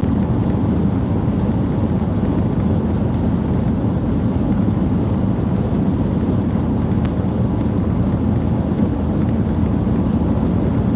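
Steady low rumble of road noise inside a moving passenger van's cabin.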